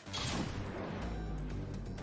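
Cartoon soundtrack music, starting with a sudden hit and carrying on with steady low notes.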